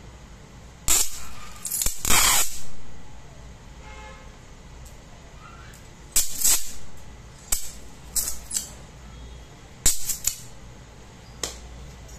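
Metal-tipped tester probe touching and scraping a metal pyramid: about seven sharp crackles in irregular bursts, some single and short, some clustered over about half a second.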